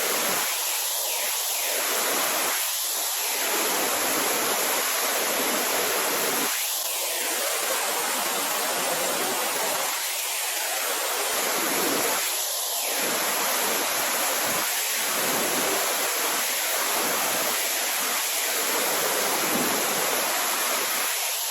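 Waterfall in heavy flow, raging after high water: a steady, dense rush of falling water.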